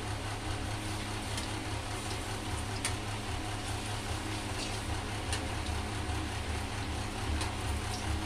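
Oil sizzling steadily in a kadai of frying pieces over a gas burner, with a low rumble underneath. A metal slotted spoon clicks lightly against the pan a few times as the pieces are turned.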